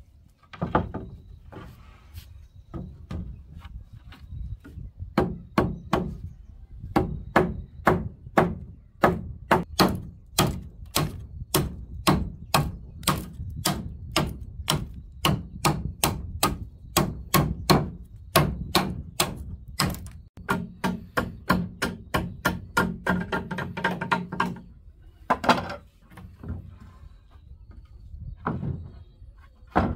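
Machete blade chopping into the end of a wooden floorboard, trimming it to fit: a long run of sharp blows, about three a second, some with a brief wooden ring. It stops about 25 seconds in, followed by a couple of single strikes.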